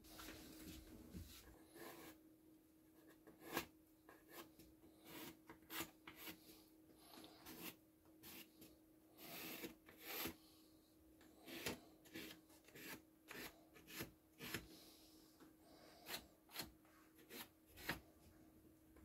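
Thin wooden slats and a large wooden ring slid and shifted by hand across a tabletop: faint, irregular scrapes and light knocks of wood on wood, over a steady low hum.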